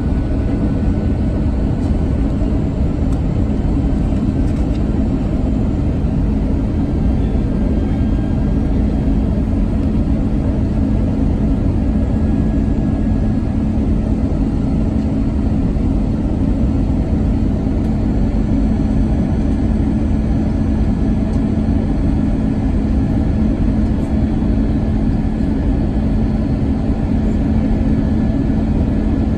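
Steady in-cabin noise of an Airbus A320 airliner descending on approach: rushing airflow and engine noise with a constant low hum.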